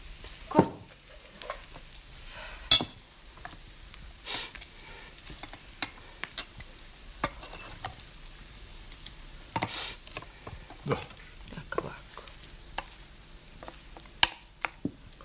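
Cutlery and dishes at a meal: a scatter of separate clinks and scrapes of spoons and forks against plates and a pan, a few of them sharp and ringing.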